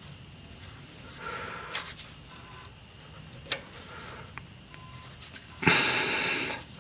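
A mechanic breathing heavily while fitting a cotter pin by gloved hand, with a couple of faint metal clicks. Near the end comes a loud breath out lasting about a second.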